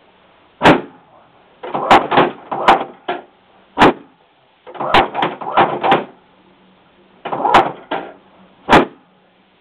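Chiropractic drop table: its spring-loaded drop sections snap down under the chiropractor's thrust, giving about six sharp clunks a second or more apart, with softer knocks and rattles around them as the sections are set and released.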